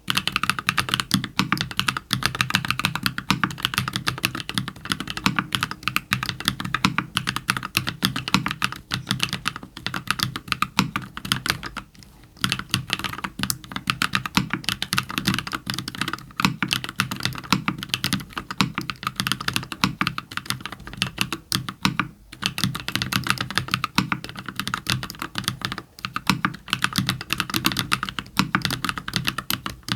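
Fast continuous typing on a custom 60% mechanical keyboard with lubed JWK Cola linear switches on an aluminium plate and semi-transparent keycaps, giving a dense stream of key clacks. The typing pauses briefly twice, about twelve seconds in and again about twenty-two seconds in.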